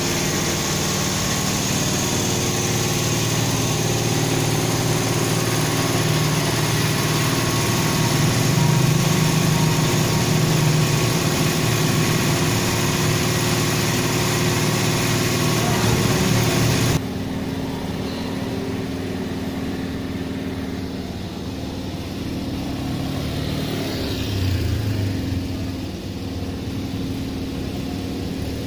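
Diesel engine of a Hino Dutro water tanker truck idling steadily. About seventeen seconds in the sound drops abruptly to a quieter engine hum, and a vehicle passes near the end.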